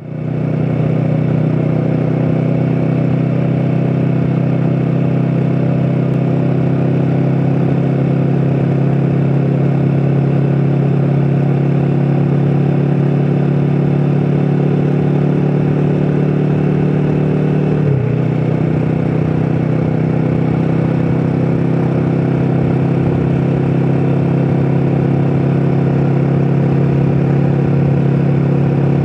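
Royal Enfield Himalayan 450's single-cylinder engine and exhaust holding a steady drone at about 5000 rpm while cruising near 100 km/h. The revs dip briefly about two-thirds of the way through, then hold steady again.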